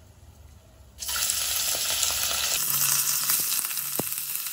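Raw chicken pieces hitting hot ghee and oil in a pressure cooker, sizzling hard from the moment they go in about a second in. A single sharp click comes near the end.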